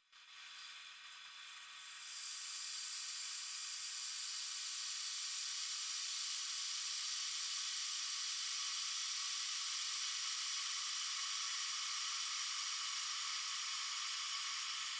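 AmazonBasics stainless steel electric kettle heating 1.7 liters of water toward the boil, sped up in a time-lapse. A steady hiss comes in faintly, grows louder about two seconds in, then holds level.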